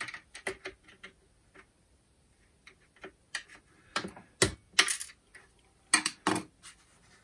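Small flat screwdriver clicking and ticking against a tiny metal retaining ring and the plastic fan housing as the ring is pried off a captive screw, in irregular sharp clicks with a few louder knocks.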